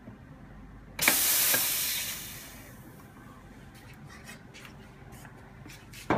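Espresso machine steam wand purged: a sudden loud hiss of steam about a second in, fading away over a second or so, the wand being blown clear after steaming milk. A sharp knock comes right at the end.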